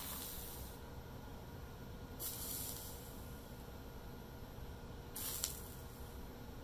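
Soldering iron tip sizzling three times on flux-coated copper foil as lead solder is spot-melted onto the edge of a stained glass panel: short hisses about two to three seconds apart, each under a second, the last with a sharp tick.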